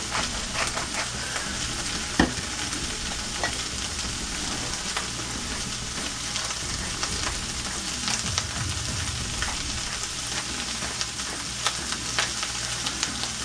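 Chopped cabbage frying in bacon grease and oil in a skillet: a steady sizzle with many small crackles and pops. One sharp tap about two seconds in.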